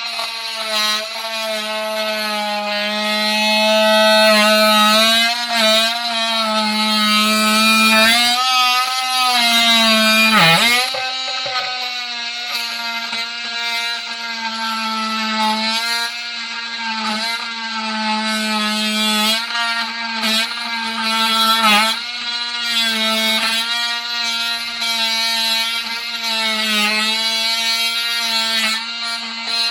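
Makita TM30D cordless oscillating multi-tool running with a steady, high buzz while its blade cuts. The pitch sags each time the blade is pressed into the material, most deeply about ten seconds in, then recovers.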